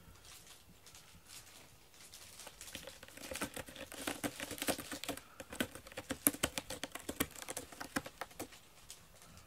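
A cat clawing a corrugated-cardboard scratcher: a rapid run of raspy scratching strokes that starts a couple of seconds in and stops shortly before the end.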